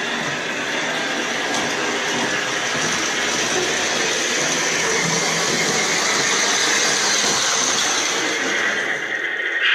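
Model train running along O-gauge track: the motors, gears and wheels of an MTH Rail King Union Pacific E-8 AA diesel set with its shells off make a steady whirring rattle. It grows a little louder as the train comes closer.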